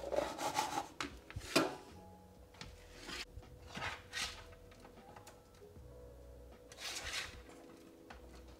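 A spoon scraping and knocking against a bowl as food is mixed: a handful of short scrapes a second or so apart, over faint background music.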